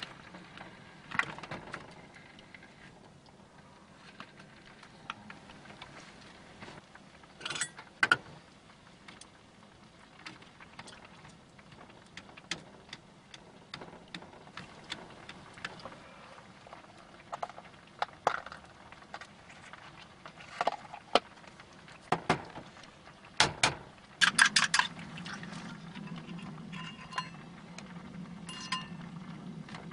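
Scattered clinks and knocks of cookware and utensils being handled while food is prepared, with a quick run of clicks about 24 seconds in, after which a steady low hum sets in.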